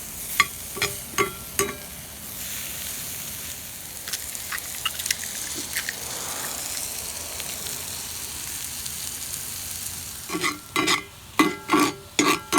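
Food sizzling in a hot metal pan, with a few sharp scrapes in the first two seconds. From about ten seconds in, a bayonet blade scrapes against the metal pan in rhythmic strokes, about two a second, each with a ringing tone.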